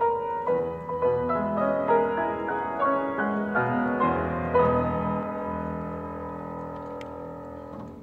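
Grand piano played four-hands, quick struck notes for the first half, then a held chord ringing out and slowly fading.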